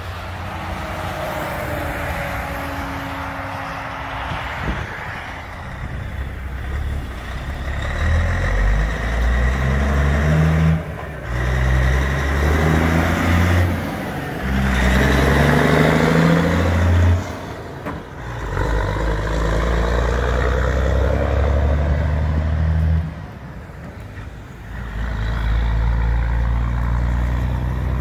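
Heavy diesel trucks driving past in a series of short takes, their engines pulling hard, the pitch climbing and dropping back as they shift through the gears. The loudest pass, in the middle, is a cabover semi-truck close by.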